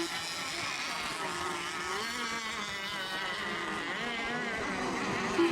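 Several racing RC model boats run their small high-revving engines at the same moment. Their whines rise and fall in pitch as the boats power down the straights and ease off into the turns. A short, loud beep sounds near the end.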